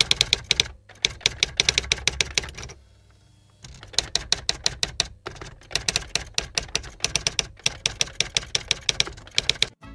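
Typewriter keys clacking in rapid runs, several strokes a second, as a sound effect for text being typed out on screen, with a break of about a second some three seconds in.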